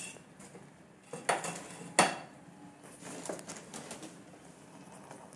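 Steel spoons knocking and clinking against a pan of bubbling jaggery syrup as rice flour and ghee are stirred in: a few sharp clinks, the loudest about two seconds in.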